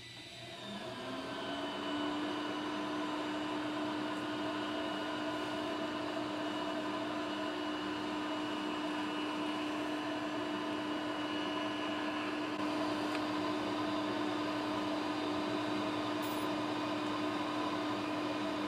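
TIG welding arc on a square-tubing T-joint: a steady buzzing hum with hiss. It swells over the first two seconds, with its pitch rising briefly before it settles, then holds even.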